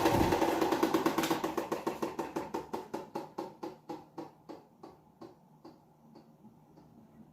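Britânia Philco 155 W electric fan switched off and coasting down: its steady running noise gives way to a rhythmic pulse with each turn of the propeller, slowing and fading out over about six seconds.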